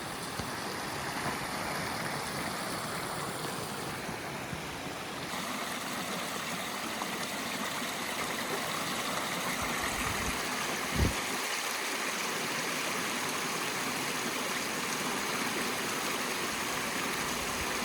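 Steady rush of flowing water, with a single low thump about eleven seconds in.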